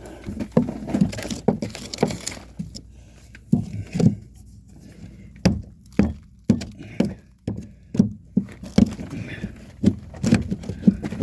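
A hammer knocking on old wooden floor framing: irregular blows, often about two a second, with short pauses between runs.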